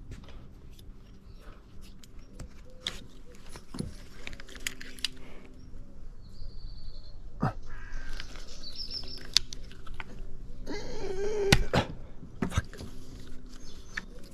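Light clicks, taps and rattles of tools and metal parts being handled, busiest about eleven seconds in.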